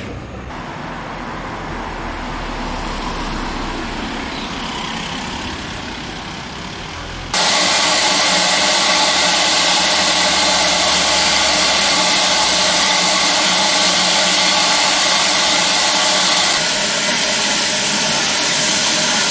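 Railway locomotive running steadily with a low rumble, then about seven seconds in a sudden, loud, steady hiss of steam starts and carries on, easing slightly near the end.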